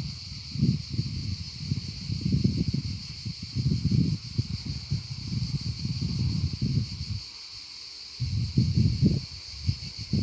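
Outdoor nature ambience: a steady high-pitched insect drone over low, irregular rumbling gusts. The rumbling drops out for about a second around seven seconds in.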